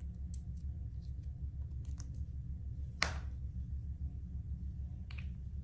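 Clear slime being worked in a plastic cup, giving faint sticky clicks, over a steady low hum. About three seconds in there is one sharp clack, then a smaller one near the end: the plastic cup set down on the counter.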